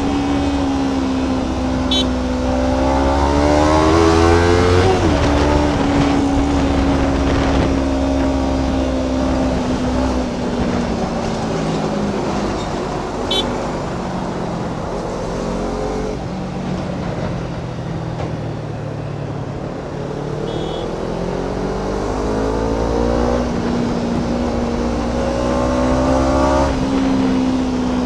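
Kawasaki Ninja 300's parallel-twin engine heard riding along, rising in pitch as the bike accelerates for the first few seconds, its revs dropping sharply about five seconds in, then easing down through the middle and climbing again near the end before falling off.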